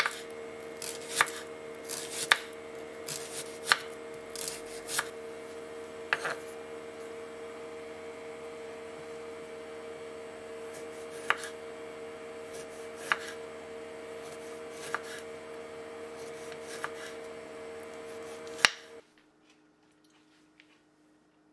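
Chef's knife slicing a shallot and then tomatoes on a wooden cutting board: irregular taps of the blade hitting the board, quicker in the first few seconds and sparser later, over a steady hum. Near the end it drops to near silence.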